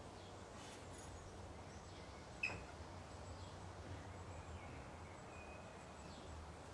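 Faint outdoor ambience with a few faint bird chirps and one sharp click about two and a half seconds in.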